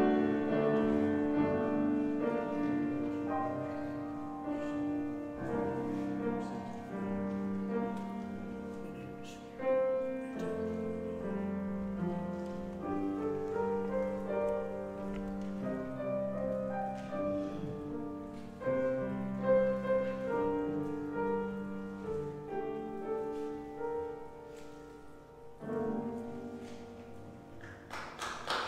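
Solo grand piano playing a slow piece of held chords, each group of notes ringing and dying away before the next is struck, growing softer near the end.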